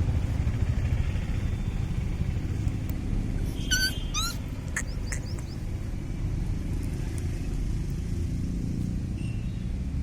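Steady low outdoor rumble, with a few short high-pitched chirps or squeaks about four seconds in.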